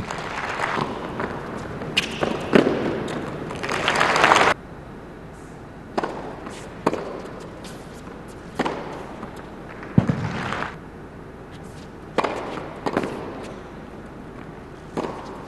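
Crowd applause that swells and cuts off abruptly about four and a half seconds in, followed by a tennis rally: sharp racket strikes and ball bounces every second or two, echoing around the indoor arena.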